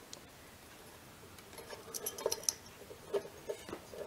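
Light metallic clicks and taps of a Wildey Survivor pistol's barrel rib and its spring-loaded detent parts being handled and fitted onto the barrel. The clicks come in a quick cluster about two seconds in and a few more near the end.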